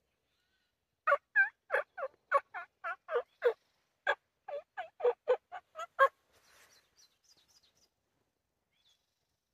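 Mouth-blown turkey call sounding a quick run of about seventeen loud hen yelps over five seconds, with a short pause near the middle.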